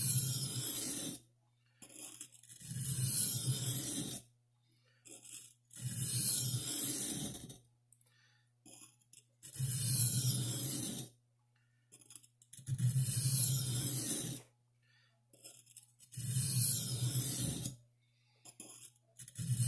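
Buck 119 knife blade drawn across an oiled sharpening stone in slow, even strokes, about six strokes each lasting about a second and a half with short pauses between, working the blade's second side after raising a burr on the first.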